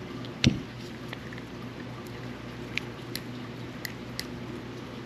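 Small clicks and taps from a spinning reel's parts being handled during a bail-trip repair, with one louder knock about half a second in, over a steady low hum.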